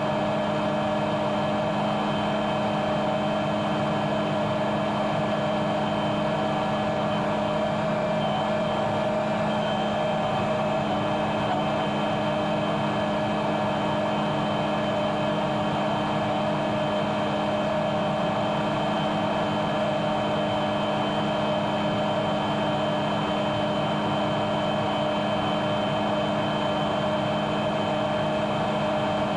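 Combine harvester running steadily while harvesting wheat: a constant machine hum with a thin, steady high whine over it.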